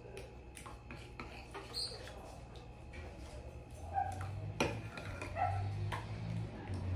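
A metal spoon stirring a thick cream and dulce de leite mixture in a glass bowl, with scattered clicks and scrapes against the bowl. A dog yelps briefly a couple of times in the background, and a low hum comes in about four seconds in.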